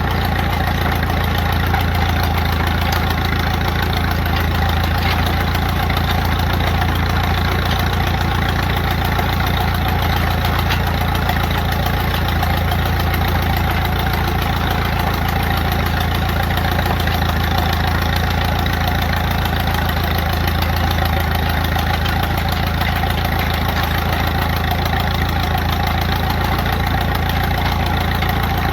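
1920 Allis-Chalmers 6-12 tractor's four-cylinder engine idling steadily.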